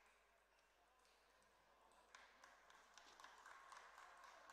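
Near silence: faint sports-hall room tone, with a faint murmur and a few light ticks from about two seconds in.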